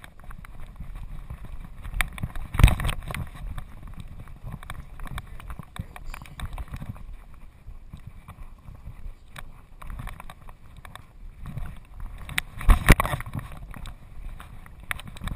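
Thumping and rubbing of a GoPro camera strapped to a moving Doberman's back, its body movement and footfalls jostling the camera housing, with two loud knocks, one a couple of seconds in and one near the end.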